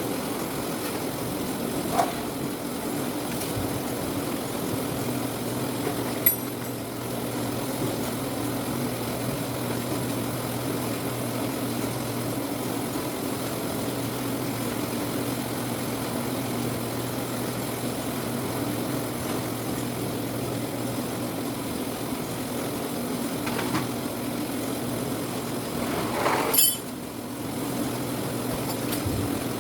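Citrus sorting machine running with a steady mechanical hum, broken by a few sharp knocks and clinks, the loudest near the end.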